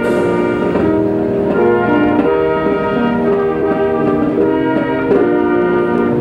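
Brass band playing a slow piece in held chords, the notes moving step by step.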